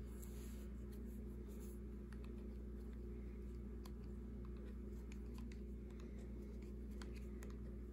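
Faint scattered clicks and scratches of a metal loom hook and yarn working loops over the pegs of a round wooden knitting loom, over a steady low hum.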